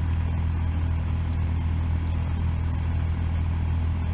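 Isuzu D-Max pickup's engine running with a loud, steady low drone that holds one pitch without revving.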